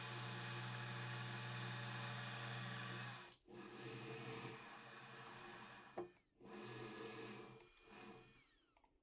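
Faint, steady electrical hum made of several fixed tones. It drops to a quieter hum about three seconds in and is cut off abruptly a few times.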